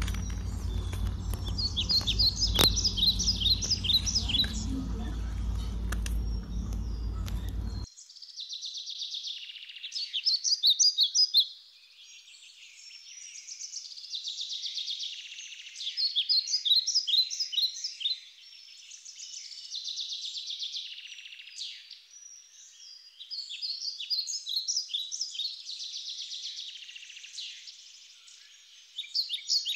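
Songbirds singing in repeated phrases of rapid high chirps. For the first eight seconds a low steady rumble lies under them; it cuts off abruptly, leaving only the birdsong.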